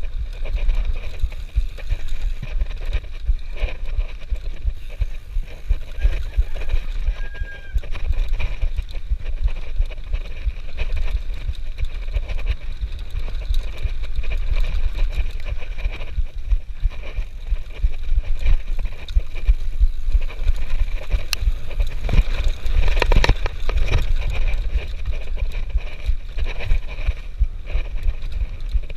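Mountain bike ridden along a rough dirt trail, heard from a handlebar-mounted camera: wind rumbling on the microphone, with the bike rattling and clicking over bumps.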